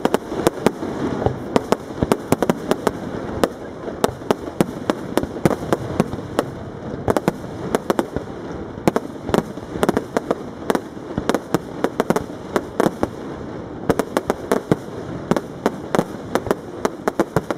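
Aerial firework shells bursting in a rapid, unbroken string of sharp bangs, several a second, over a continuous rumble.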